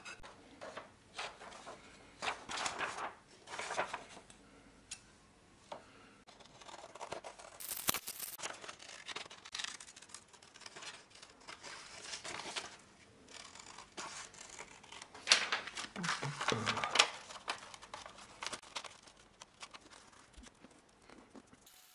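Scissors snipping through a sheet of paper to cut out a template, with intermittent paper rustling and crinkling as the sheet is handled.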